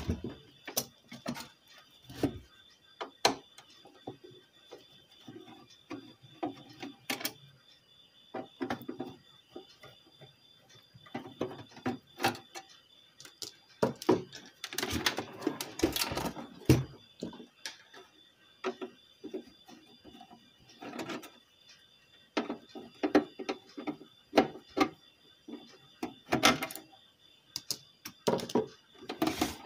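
Irregular clicks, knocks and rattles from the metal cabinet of a V-Guard Prime 1050 inverter as it is handled and its cover taken off, with a faint steady high tone underneath.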